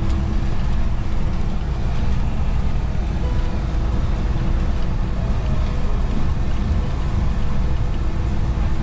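Steady low rumble of engine and road noise inside a tractor-trailer truck's cab cruising on the expressway.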